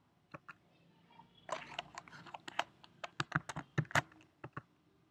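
Typing on a computer keyboard: a couple of single keystrokes near the start, then a quick run of keystrokes from about a second and a half in that lasts about three seconds.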